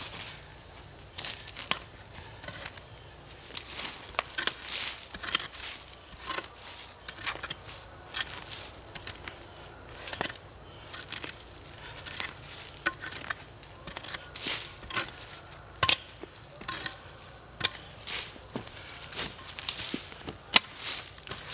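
Axe chopping into northern red oak roots in the dirt, irregular blows about once a second or faster. Dry leaves crackle and crunch underfoot between the strikes.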